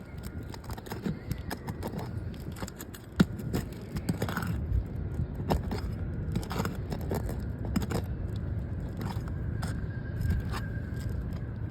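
Scraping and scattered clicks of a pry tool working under an asphalt shingle to free a stuck roofing nail, with one sharp knock about three seconds in.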